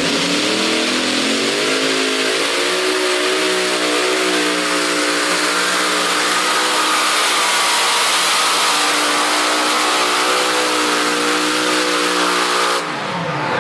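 Multi-engine modified pulling tractor running at full throttle under load. The engine note climbs over the first couple of seconds, holds steady through the pull, then drops away sharply near the end as the engines come off the throttle.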